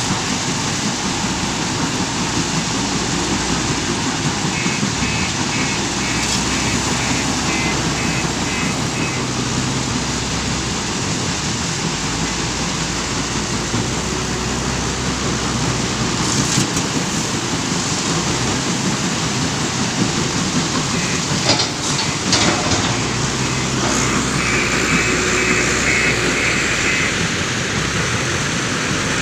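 Steady din of a stone crusher plant's machinery and conveyors together with a JCB 530-70 telehandler's diesel engine working as it loads crushed stone into a dump truck. A reversing alarm beeps in quick, evenly spaced pips in two spells of several seconds each, and a few sharp knocks and rattles come about two-thirds of the way through.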